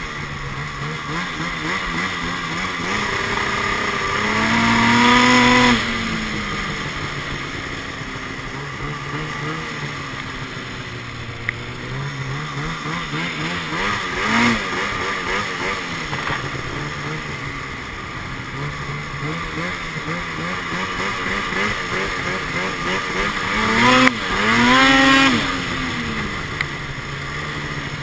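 2012 Arctic Cat XF 800 snowmobile's two-stroke twin, breathing through a Sno Stuff high-performance silencer, running under changing throttle while riding. Twice, about four seconds in and again near the end, it revs hard with its pitch climbing, then the throttle is chopped, the first time abruptly; a shorter blip comes midway.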